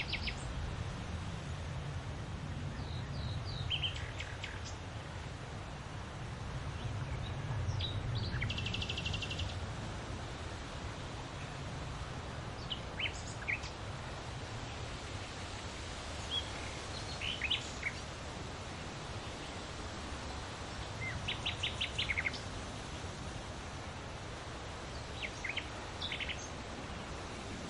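Wind rustling large leaves, a steady hiss with a low rumble that swells and eases, while small birds chirp now and then, with a quick rapid trill about 8 seconds in and another about 21 seconds in.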